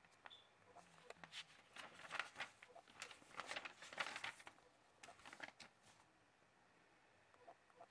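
Faint rustling and flicking of paper as a notebook's pages are turned, in a run of quick rustles through the middle that die down near the end.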